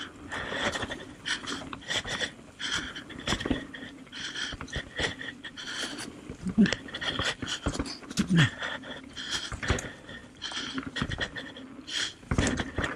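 Mountain bike rolling down a dirt singletrack, with steady rattling and knocking from the bike over the rough ground. Over it the rider breathes hard, with a couple of short grunts about six and a half and eight seconds in.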